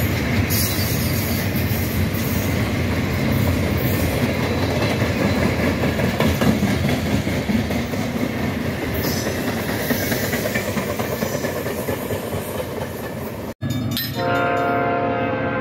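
Norfolk Southern freight train rolling past close by, a loud steady rumble of wheels on rail and passing cars. About 13.5 seconds in the sound cuts off suddenly, and near the end a sustained, chord-like tone comes in.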